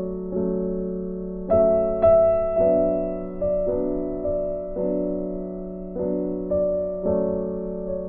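Slow, gentle background piano music: single notes and chords struck about once a second, each fading away.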